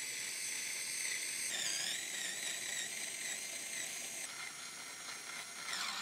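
Small cordless electric screwdriver's motor whining steadily as it drives a standoff into a tapped hole in the motherboard tray. Its pitch wavers about a second and a half in as it takes up load, and it winds down near the end.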